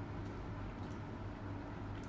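Steady low hum with a faint hiss, and two faint short clicks about a quarter second and just under a second in.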